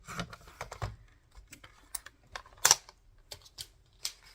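Irregular clicks and taps of card and a paper trimmer being handled and set on the desk, with one louder clack about two-thirds of the way through.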